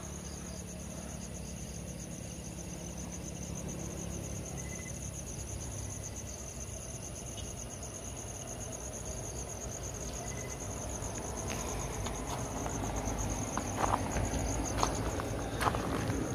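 Night crickets trilling steadily, a high, rapidly pulsing chorus, over a low rumble; a few light knocks near the end.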